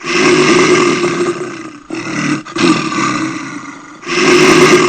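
Bear growling: a run of long, loud, rough growls, broken by short pauses about two and four seconds in.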